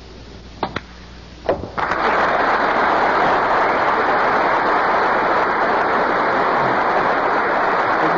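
Snooker cue tip clicks on the cue ball, the cue ball clicks into the object ball, and a ball knocks in the pocket. Then the audience breaks into loud, steady applause as the break passes a century.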